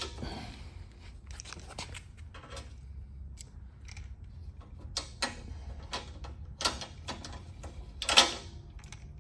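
Scattered small metal clicks and taps as flush bolt parts and screws are handled and fitted into the door's edge, the sharpest knock near the end, over a steady low hum.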